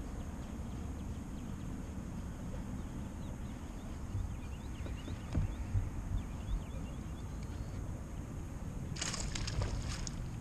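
Steady low rumble of wind buffeting the microphone out on the water, with faint high chirps midway and a short burst of rattling clicks near the end.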